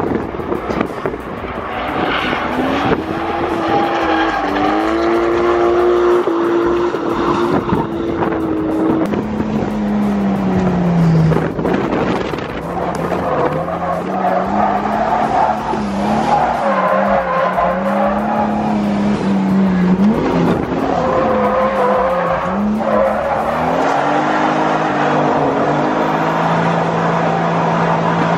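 Drift car engine revving up and down with the throttle through a drift run, with tires squealing and skidding.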